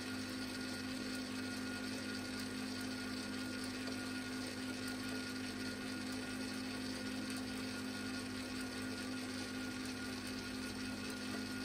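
Spiral dough mixer's electric motor and spiral hook running steadily while kneading dough, a constant hum with a steady low tone.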